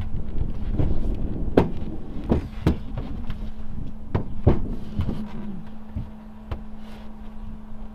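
Several sharp knocks and clunks on a pickup's steel-mesh truck rack and wooden headboard as it is handled and climbed on, most of them in the first five seconds, over a steady low hum.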